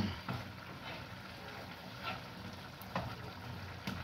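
Food sizzling faintly in a pan, with four light clicks of a utensil spread through.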